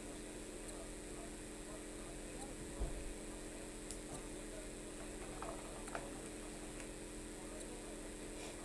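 Steady low electrical hum with background hiss, and a single soft thump about three seconds in.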